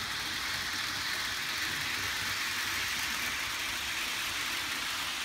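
Several HO scale model trains running at once: a steady whir of their small electric motors and wheels rolling on the track.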